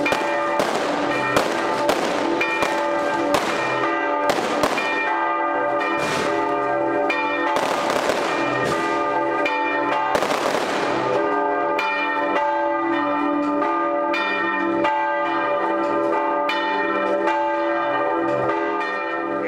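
Church bells ringing a festive peal while firecrackers go off throughout in irregular sharp bangs, with a couple of heavier, longer blasts around the middle.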